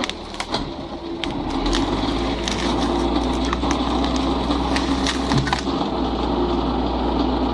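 Wood cracking and splintering: many sharp cracks over a steady low rumble.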